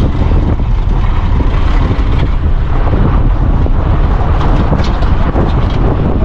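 Wind buffeting the microphone held out of a moving car's window, over the low rumble of the car driving on a gravel dirt road. The noise is loud and steady.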